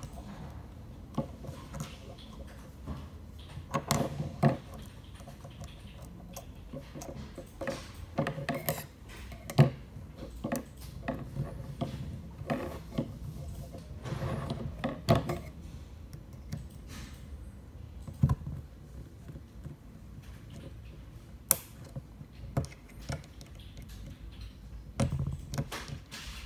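Irregular small clicks, taps and scrapes of metal and plastic parts being handled as a hair clipper blade set is assembled by hand, with a few sharper knocks among them.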